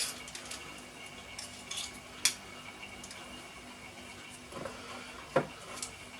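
Scattered light clinks and taps of kitchen utensils and dishes, the sharpest a little over two seconds in, over a faint steady hum.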